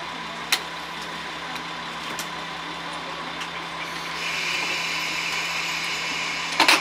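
Diesel railcar engine idling steadily, then opening up about four seconds in with a louder hiss as the train starts to pull away. There is a click about half a second in and a short loud burst of noise near the end.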